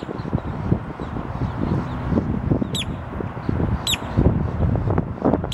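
Male boat-tailed grackle calling: short, sharp, high whistled notes, two of them about a second apart midway, over a constant low rumbling noise.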